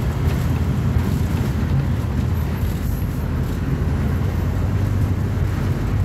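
Volkswagen 17.230 OD bus chassis' diesel engine idling with a steady low rumble.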